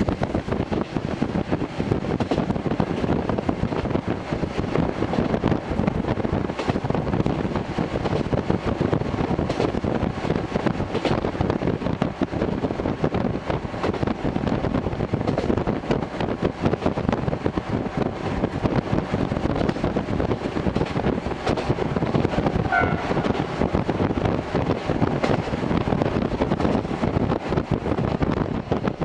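TH3501 diesel railcar running along the line, heard from inside the car: a steady rumble of engine and wheels on rail, with many small clicks and rattles.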